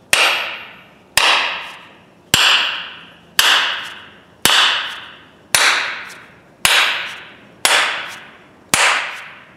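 Nine sharp blows about a second apart, each ringing briefly as it fades. They come from the steel head of a 3 lb hammer being struck down on the workbench to seat it on its new wooden handle.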